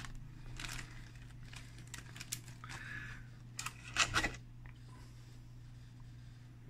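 Handling noises from a thin plastic PET bottle: soft crinkles and light clicks, the loudest a short cluster of clicks about four seconds in.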